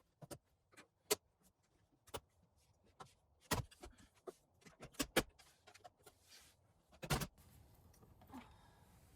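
Irregular sharp plastic clicks and snaps from the center-console trim of a 2012 Subaru Legacy being pried loose, its retaining clips popping free. There are about a dozen clicks, with the strongest coming in a few separate moments.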